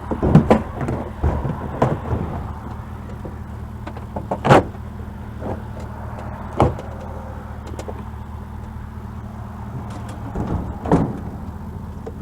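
A vehicle engine idling steadily, with a handful of sharp knocks and clunks from items being handled over it; the loudest knock comes about four and a half seconds in.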